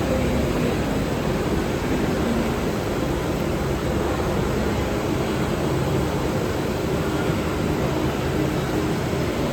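Steady drone of industrial machinery: a continuous carbonization furnace plant running, a low hum with a few steady tones over an even rushing noise.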